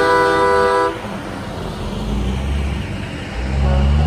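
Semi truck's air horn blowing a held chord that cuts off about a second in, followed by the low rumble of diesel truck engines driving past, growing louder near the end.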